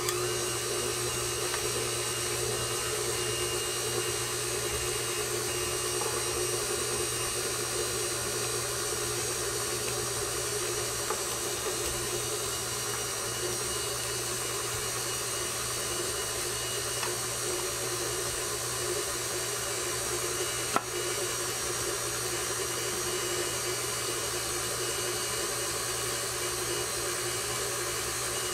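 KitchenAid Classic Plus stand mixer's motor running steadily at low speed (speed 2), its flat beater mixing cookie dough in the stainless steel bowl. One sharp click about two-thirds of the way through.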